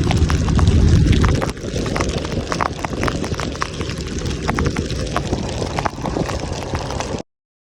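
Rumbling wind and vehicle noise buffeting the microphone, loudest in the first second and a half, with many sharp crackles throughout; it cuts off suddenly near the end.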